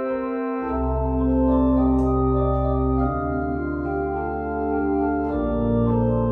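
Johannus STUDIO-II digital organ playing slow Baroque organ music in held chords; deep bass notes come in under the chords about a second in and move to another note near the end.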